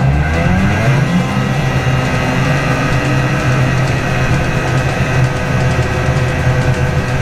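Snowmobile engine revving up over the first second as the machine accelerates, then running at a steady high speed.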